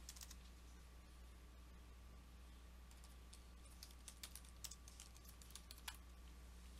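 Faint typing on a computer keyboard: a run of quick, light key clicks, most of them in the second half, over a low steady hum.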